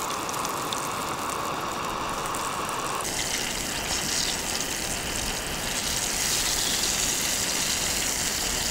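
Surfperch fillets coated in cornstarch frying in hot vegetable oil in a small pan: a steady hissing sizzle that turns brighter about three seconds in.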